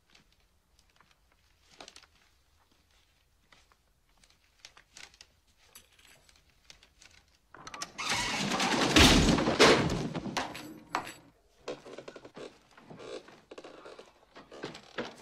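Scattered light footsteps and small knocks, then about halfway through a ceiling attic hatch is pulled open and its folding wooden ladder swings down with a loud rattling, clattering thunk lasting a few seconds. Creaks and knocks follow as the ladder is climbed.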